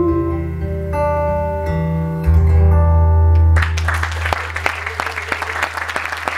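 Acoustic guitar playing the closing notes of a song, ending on a low ringing chord. About three and a half seconds in, the audience starts applauding.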